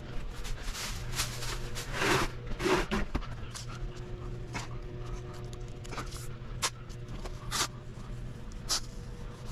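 Masking tape being pulled off the roll in short rips and pressed down by hand, with irregular scraping and a few sharp ticks over a steady low hum.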